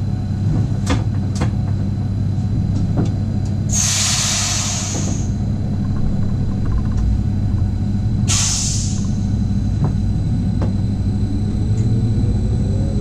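Regional train heard from the driver's cab: a steady running rumble with occasional sharp clicks, two loud hisses of released compressed air, the first about four seconds in and lasting over a second, the second shorter about eight seconds in, and a whine rising in pitch near the end as the train picks up speed.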